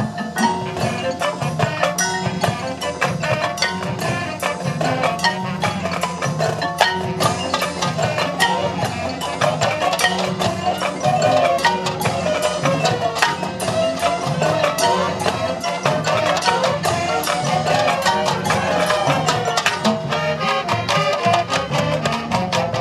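Marching band playing its field show, with sharp percussion strikes over sustained pitched instruments.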